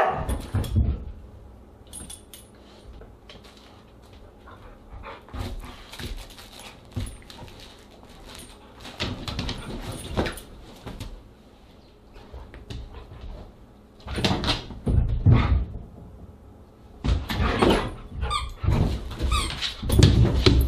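Siberian huskies playing rough with squeaky plush toys: a loud thump right at the start, then the toys squeaking on and off amid bursts of scuffling and thumping as the dogs pounce on the bed and floor, busiest in the last several seconds.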